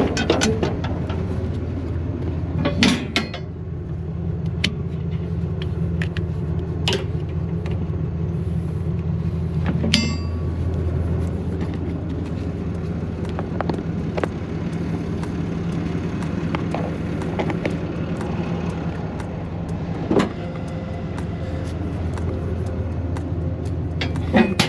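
An engine running steadily with a low drone, with scattered knocks and clanks over it.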